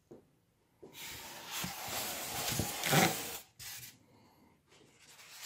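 Cardboard packaging scraping and rubbing as the monitor box's cardboard insert is handled and pulled: a long rough scrape from about a second in, loudest near three seconds, then fainter rustles near the end.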